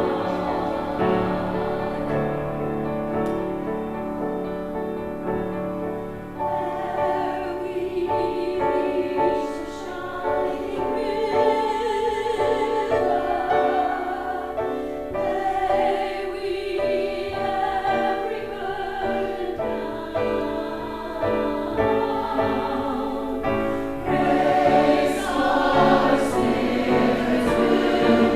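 Church choir singing an anthem with accompaniment, several voice parts holding and moving between sustained notes.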